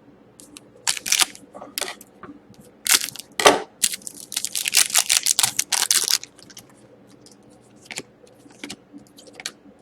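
Trading cards being handled: a string of crisp rustles and sharp clicks as cards slide and flick against each other, busiest in a dense rustling run around the middle.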